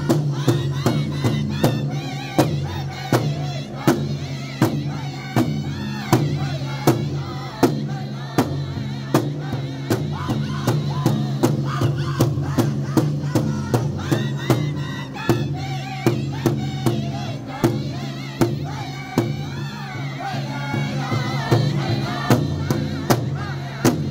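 Powwow drum group singing together in high, wavering voices over a steady, even beat struck in unison on one large shared drum with drumsticks, about two to three strokes a second. The drumming and singing stop near the end.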